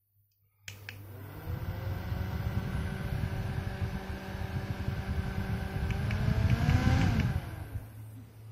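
Small handheld USB mist fan's motor starting up and running with a steady whirr, its air gusting on the microphone. Near the end it briefly rises in pitch, then winds down.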